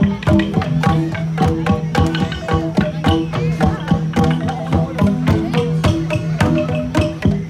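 Central Highlands gong ensemble (cồng chiêng) playing: many gongs struck in a fast interlocking rhythm, several strikes a second, over a steady low ringing tone.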